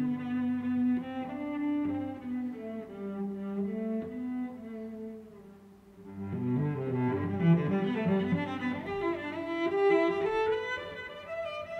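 Background music of bowed strings: a low melody of held notes that step from one pitch to the next, dropping away briefly about halfway through before building again.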